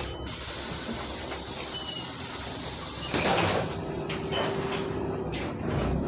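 Pneumatic doors of a LiAZ-5292 city bus working: a loud hiss of compressed air for about three seconds, with a clatter as the door leaves move, then a quieter rumble.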